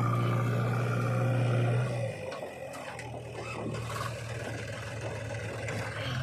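Diesel engine of heavy machinery running hard, then easing back to a lower, quieter run about two seconds in, with a few faint knocks.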